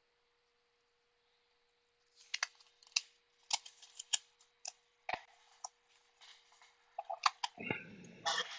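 Small parts and hand tools being handled on a repair bench: an irregular string of sharp little clicks and taps that starts about two seconds in, with a rougher rubbing sound near the end. A faint steady hum from bench equipment lies underneath.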